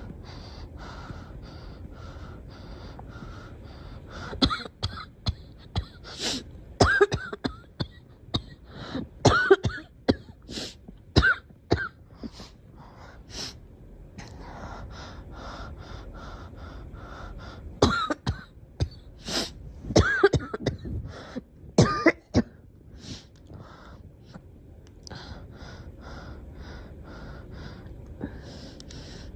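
A girl coughing in two long bouts of harsh, repeated coughs, the first about four seconds in and the second about eighteen seconds in. Between the bouts come fainter short sounds, about two a second.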